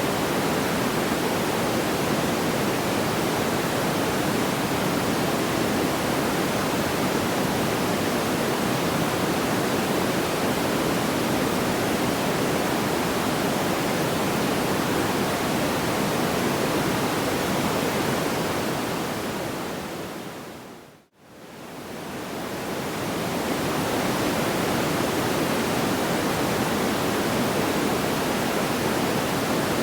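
Steady, even rushing noise with no distinct crackles or pops. About 20 seconds in it fades down to near silence and then fades back up over a couple of seconds, the seam of a looped track.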